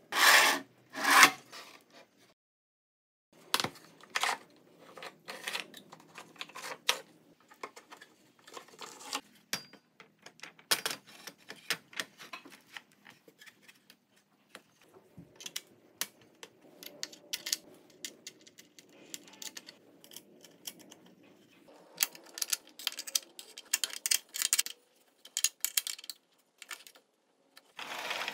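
Linear-bearing carriage of a crosscut jig sliding along its steel rods, twice in quick succession near the start. After that come irregular clicks, knocks and rubbing as parts are handled and fitted onto the aluminium carriage plate.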